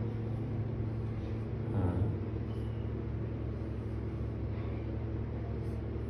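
A steady low hum runs throughout, with one brief louder sound about two seconds in.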